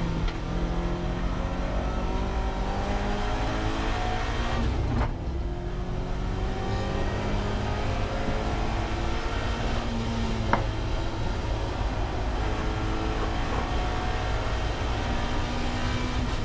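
Race car's engine heard from inside the cockpit, running hard under acceleration. Its pitch glides up and down as it works through the revs, with a brief drop in loudness about five seconds in and a single sharp click about ten seconds in.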